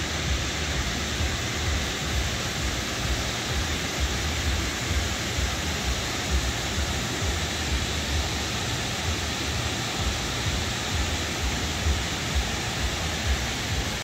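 Kravice waterfalls rushing steadily across the pool, with an uneven low rumble underneath.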